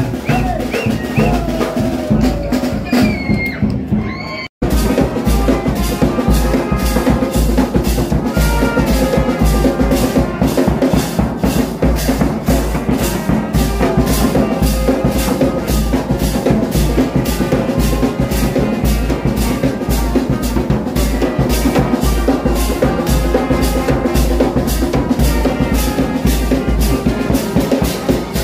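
Brass band playing: trumpets and other brass over a bass drum, snare drum and hand cymbals, with a strong steady beat. The sound cuts out for a moment about four and a half seconds in, then the full band plays on.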